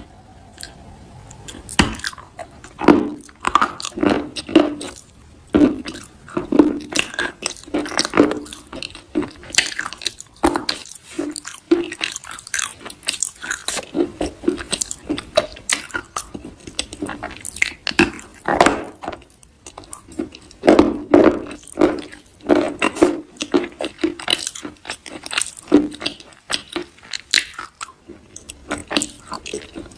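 Close-miked soft crunching: an irregular run of short, crisp crunches, several a second.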